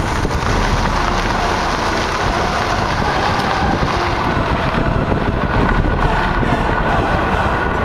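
Wind buffeting the microphone of a camera held outside a moving Chevrolet G20 conversion van, with the van's driving rumble underneath.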